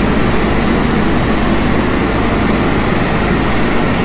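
A standing Nilgiri Mountain Railway rack steam locomotive giving off a loud, steady rushing hiss, unbroken and without any rhythm.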